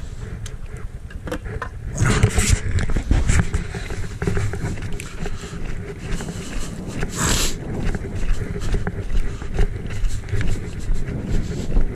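Footsteps hurrying across lake ice, settling into about two steps a second, with a couple of louder scuffs along the way.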